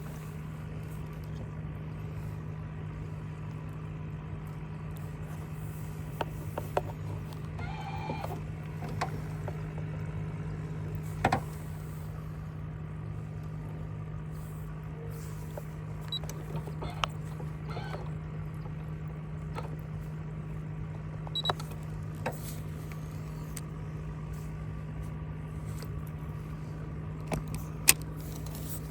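A small electric motor on a fishing boat humming steadily at one low pitch, with a few scattered light knocks and clicks, the sharpest near the end.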